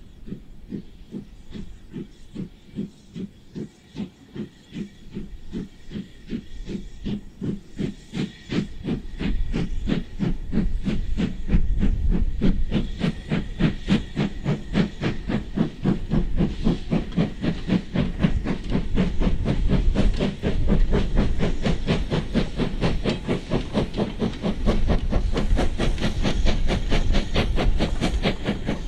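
LMS Ivatt 2MT 2-6-0 two-cylinder steam locomotive working a freight train, its exhaust beating rapidly and evenly from the chimney. The beats grow louder as it draws near, and a low rumble of the train on the rails joins in from about ten seconds in.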